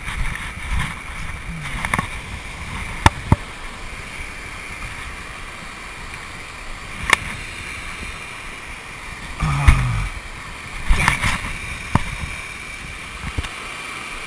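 Steady rush of a small waterfall spilling into a pond, with a few sharp clicks and knocks from a fly rod and line being handled close by.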